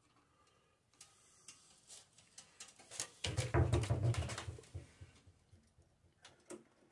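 Light metal clicks and scrapes as a new drive tensioner spring is worked onto its hook hole on a Husqvarna ST224 snowblower, with a louder low rumble and a cluster of clicks for about a second and a half, starting about three seconds in.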